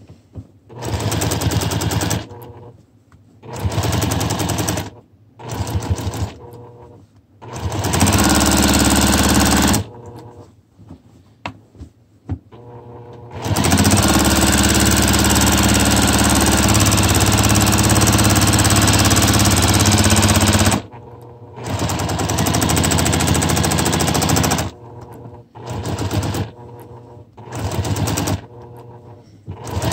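Juki TL-2200QVP Mini sewing machine stitching at speed during free-motion quilting, starting and stopping over and over in bursts of one to two seconds, with one longer steady run of about seven seconds in the middle.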